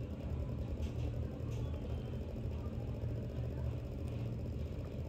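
Mechanical wave driver vibrating a string at about 15 Hz, giving a steady low hum.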